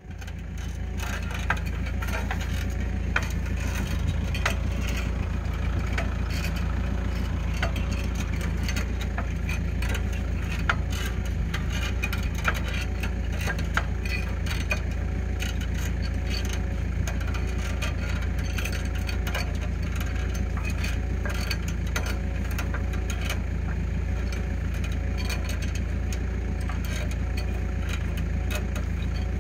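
New Holland LS170 skid steer's diesel engine running steadily, driving a hydraulic wire winder that reels in old barbed wire. Frequent sharp clicks and rattles come from the wire as it is wound onto the reel.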